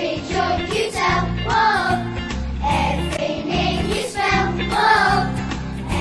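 A group of children singing a song together over instrumental accompaniment with a steady bass line.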